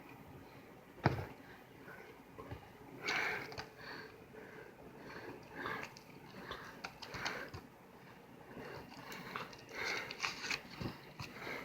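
Blu-ray case being handled and unwrapped: a sharp click about a second in, then plastic crinkling and rustling with small clicks.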